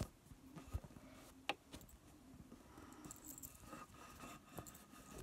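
Faint handling noise from fingers squeezing a foam squishy against the phone: a few soft clicks in the first second and a half, then quiet rustling.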